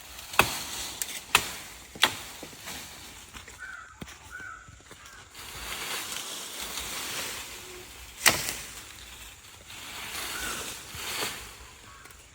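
A handful of sharp knocks at irregular intervals, the loudest about half a second in, two seconds in and about eight seconds in, with a rustling haze between them. A few short high calls come around four seconds in and again near ten seconds.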